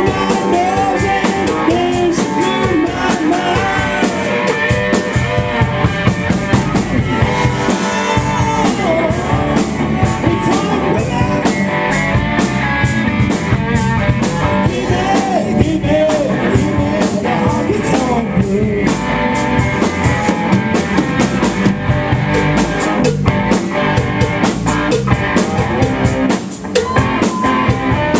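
A live rock band playing loud: electric guitars over a drum kit with a steady beat. The band briefly drops out for a moment near the end.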